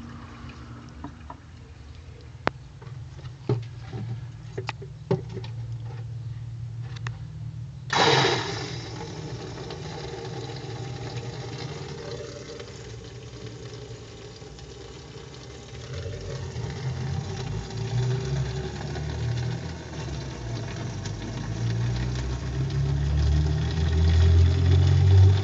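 Water rushing out of a pipe through a plastic electric solenoid valve into a plastic bottle, starting abruptly about a third of the way in and growing heavier and lower toward the end. Before it, a low steady hum and a few sharp clicks.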